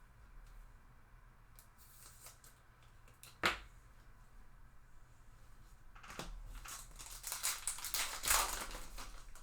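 Trading cards being handled and flipped through, with a single sharp click about three and a half seconds in and a run of rustling, crinkling handling sounds over the last few seconds.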